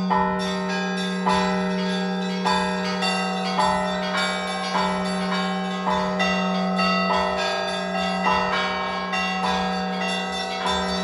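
Russian Orthodox church bells rung by hand, several bells together, as the call to the all-night vigil. A heavier stroke falls about every second, with quicker strokes of smaller bells between, over a steady low hum from the big bell.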